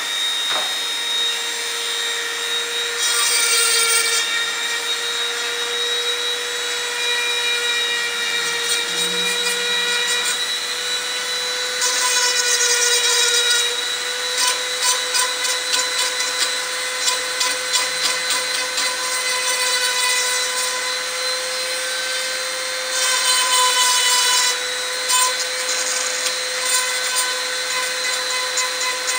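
Handheld rotary tool running with a steady high whine, its small bit grinding metal at the joint of a steel machete blade and its brass ferrule. It bites harder in three louder rasping spells, with fine rapid chatter between them.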